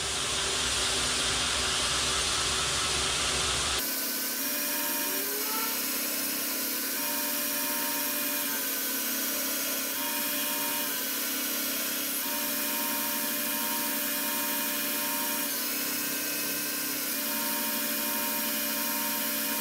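Belt grinder running as a 52100 steel knife blade is ground on it: a steady grinding rush over a constant motor hum. The sound changes abruptly about four seconds in.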